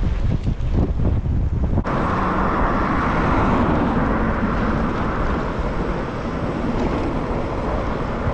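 Wind buffeting the microphone of a camera mounted on a moving bicycle, a low uneven rumble. About two seconds in it changes abruptly to a steadier, higher rushing noise.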